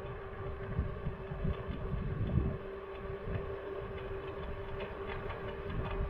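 Slidefox NT electric kick scooter riding at a steady speed: a steady whine from its motor over uneven rumble from the road and wind buffeting the microphone.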